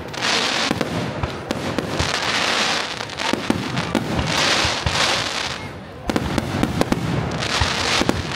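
Aerial firework shells bursting with sharp bangs, each burst followed by about a second of dense crackling from glittering stars, four times over.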